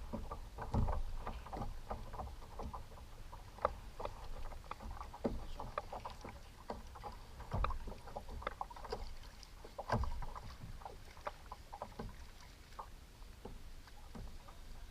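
Water slapping and splashing against a kayak's hull, with irregular small knocks and a few heavier low thumps.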